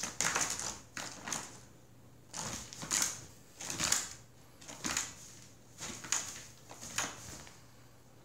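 Feather wand cat toy swished and dragged across a hardwood floor: short rustling scrapes about once a second, which stop about seven seconds in.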